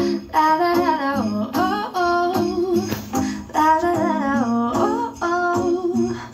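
Intro music with a melodic vocal line sung in short phrases over a light instrumental backing.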